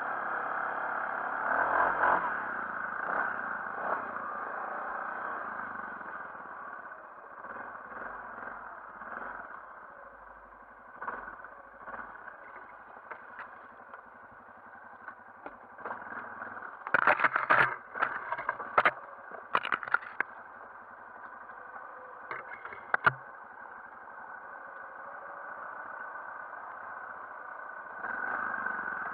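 Yamaha Grizzly 450 ATV's single-cylinder four-stroke engine running as it is ridden off-road, louder at the start, easing off through the middle and picking up again near the end. A burst of sharp knocks and clatter comes a little past the middle, with two more knocks shortly after.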